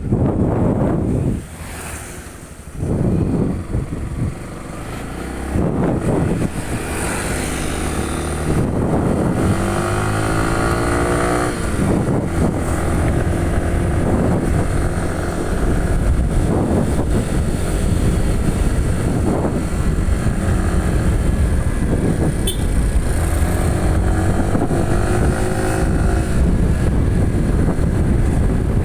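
Yamaha WR155's single-cylinder four-stroke engine revving up again and again as the bike accelerates through the gears, the pitch climbing then dropping at each shift. Heavy wind rumble on the microphone.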